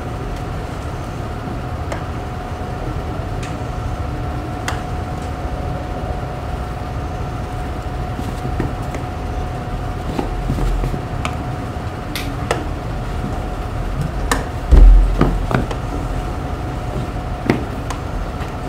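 Classroom room noise: a steady hum with a faint whine, scattered light taps and knocks, and one louder thump about fifteen seconds in.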